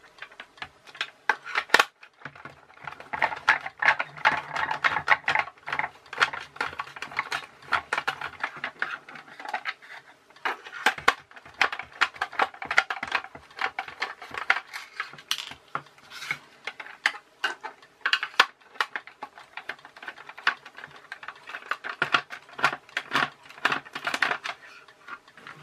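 Plastic toy car parts being handled and pulled apart: many small clicks, rattles and scrapes as the body shell comes off and the chassis with its wheels and gearbox is turned over in the hands.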